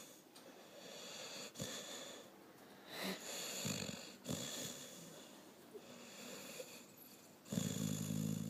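Snoring: several wheezy, whistling breaths in a row, with a louder, lower snore near the end.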